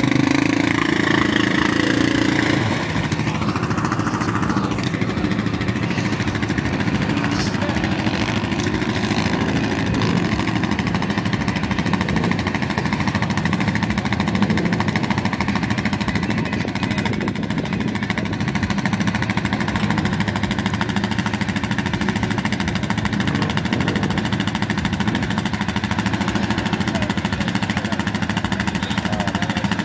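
Quad bike (ATV) engines running, one revving up about three to five seconds in, then settling into a steady drone.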